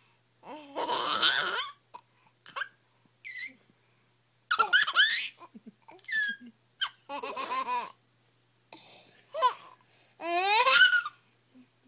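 Babies laughing, in about five separate bursts of high-pitched giggling with short pauses between.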